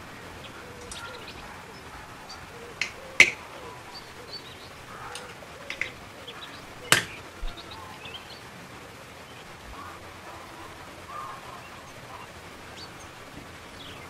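Sharp clicks of copper tubes being pushed into a white plastic push-fit tee fitting and the fitting being handled, about five clicks in all, the loudest a little after three seconds and near seven seconds in.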